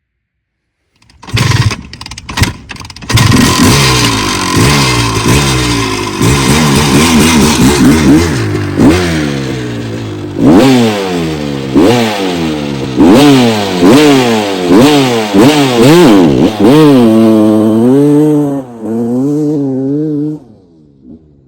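A 1997 Honda CR250's single-cylinder two-stroke engine is revved hard while the dirt bike is ridden, its pitch climbing and dropping over and over through the gears. Near the end it stops suddenly as the engine blows its top end, with a broken piston.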